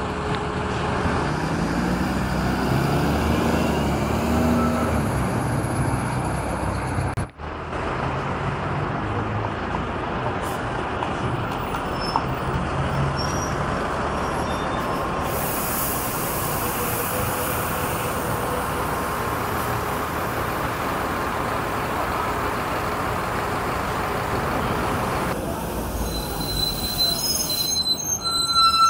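City buses' diesel engines running amid street traffic; early on a bus's engine note rises for a few seconds as it pulls away. Near the end a bus's brakes squeal with several high steady tones.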